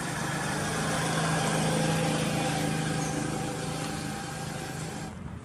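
Motor engine running at a steady pitch, growing louder to a peak about two seconds in and then easing off; the sound changes abruptly near the end.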